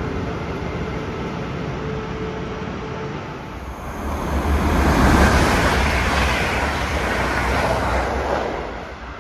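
MTRX Stadler FLIRT electric express train running past the platform at speed: a rushing rail rumble that builds from about three and a half seconds in, peaks, and dies away near the end. Before it, a steadier electric train hum with faint whining tones.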